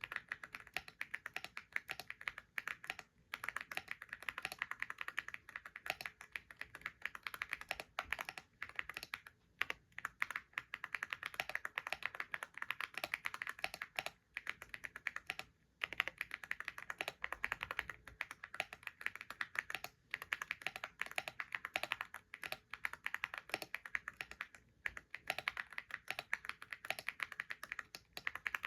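Computer keyboard being typed on continuously, a fast stream of key clicks with short pauses every few seconds.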